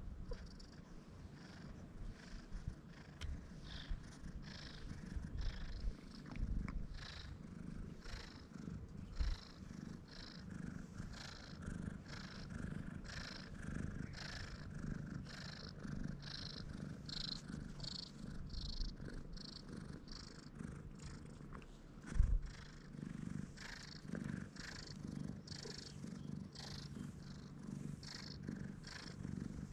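Brown tabby stray cat purring steadily as it is stroked, a purr of contentment at being petted. One brief thump about two-thirds of the way through.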